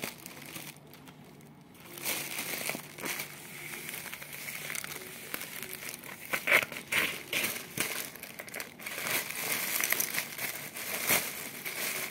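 Thin plastic shipping pouch crinkling and crackling as it is cut open with scissors and handled. Softer for about the first two seconds, then constant crinkling with sharp crackles.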